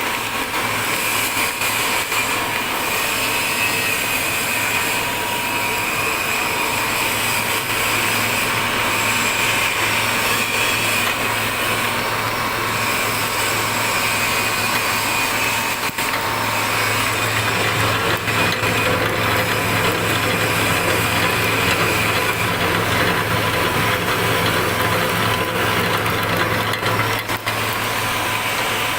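Wood pellet mill running steadily: continuous machine noise with a constant low hum and a steady high whine.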